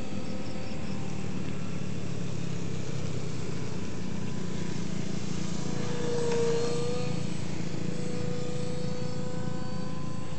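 Electric motor and propeller of an RC foam plane in flight, a steady whine that swells and dips in pitch as the plane passes about six and a half seconds in.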